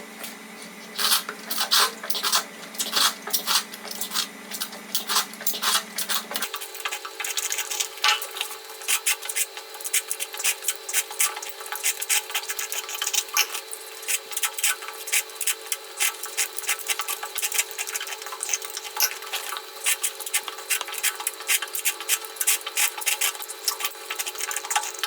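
Close-up eating from a bowl of eggs: a dense, irregular run of small clicks and taps from mouth, bowl and utensil contact. A steady low hum underneath changes about six seconds in.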